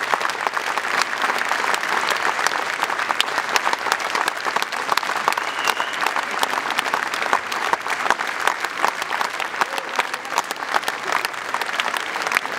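Crowd applauding with steady, dense clapping.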